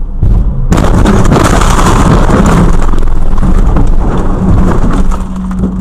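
Car collision heard through a dashcam's microphone: a sudden loud crash about a second in, followed by about four seconds of harsh, crackling noise that dies down near the end, leaving a steady low hum.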